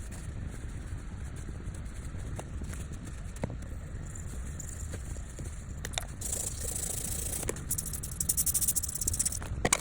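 Repair tools clicking and scraping on a phone's circuit board over a steady low hum. A fast, scratchy scraping starts about six seconds in and runs until near the end.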